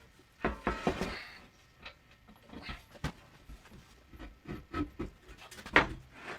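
Scattered knocks and clunks of a heavy 3/8-inch steel plate being handled and set onto a wooden workbench, a cluster about half a second in and single sharper knocks later, some with a brief metallic ring.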